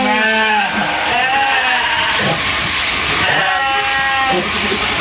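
Sheep bleating three times over a steady hiss. The first bleat rises and falls, and the last one, near the end, is flatter and longer.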